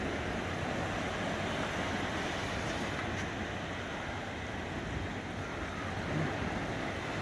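Wind on the microphone over small surf waves washing onto the beach: a steady rushing noise.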